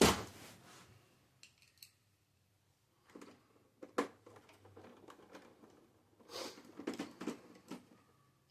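Handling noises from a printer being taken apart: a sharp knock at the start and another about four seconds in, with bursts of scraping and clicking of plastic parts in between.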